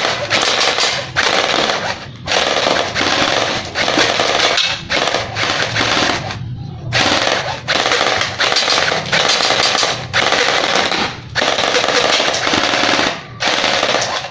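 D'Cobra airsoft gun converted from spring to electric (AEG) firing on full auto, about eight bursts of one to two seconds each with short breaks between them.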